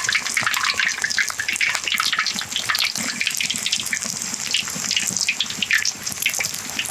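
Hot oil in a large wok bubbling and crackling steadily around a whole chicken wrapped in glutinous rice as it deep-fries, a dense run of quick sharp pops over a hiss.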